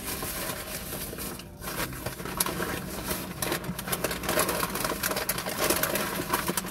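Paper food wrapping and napkins crinkling and rustling as they are handled during a meal, a dense run of crackles starting about two seconds in.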